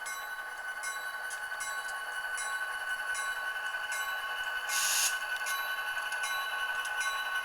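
ESU LokSound Select decoder in a model SD40-2 playing EMD diesel locomotive sound through a tiny sugar cube speaker. The engine drone is thin and tinny, with a steady whine and no low end. A short burst of hiss comes about five seconds in.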